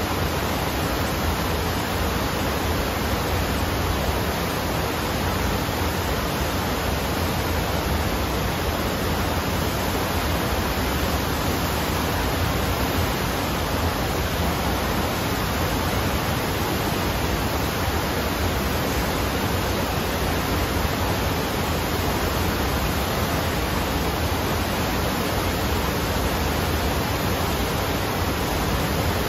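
Water rushing over an indoor sheet-wave surf simulator: a steady, unbroken rush with a low rumble underneath.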